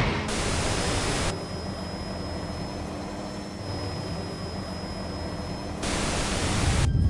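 A steady low rumble under a hiss, with a faint high whine held throughout. Two bursts of louder hiss, each about a second long, come shortly after the start and again near the end.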